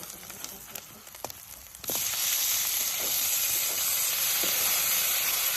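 Pork curry frying in a pan, sizzling. It is quieter at first, with a few sharp clicks and taps, and the sizzling comes in loud and steady about two seconds in.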